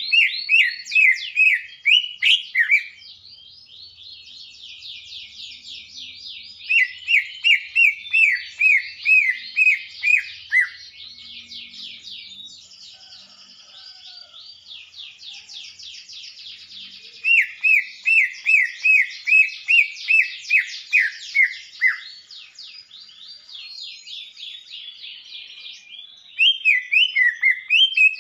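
Male green leafbird (cucak ijo) singing: four loud phrases of repeated, sharply falling whistled notes, about three a second, with softer rapid twittering running between them.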